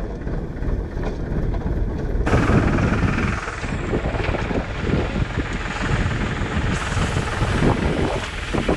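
Tractor engine running steadily as it tows a field implement, with wind noise on the microphone from about two seconds in.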